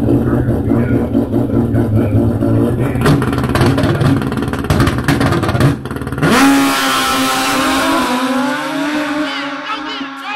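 Drag-racing motorcycle engine held at high revs on the start line with rapid popping, then launching about six seconds in, its note climbing steadily as it pulls away down the strip and fades.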